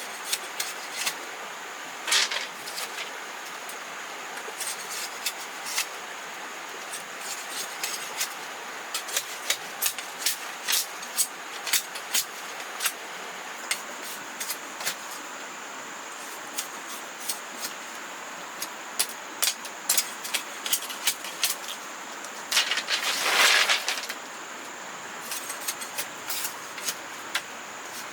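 Irregular light clicks and taps over a steady hiss, with a longer, louder scraping rustle about 23 seconds in.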